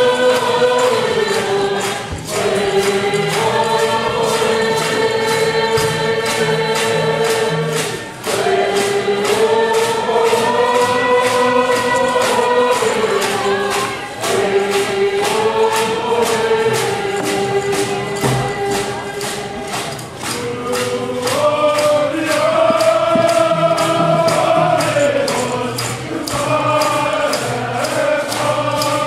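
Many voices singing a Coast Salish canoe song together, holding long notes that step up and down in pitch, over a steady beat of hand drums.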